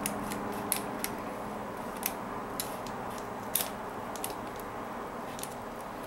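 Small scissors snipping the stretch cord of a pony-bead peyote-stitch kandi panel: about a dozen sharp, irregular clicks, some in quick pairs, over a faint steady room hum.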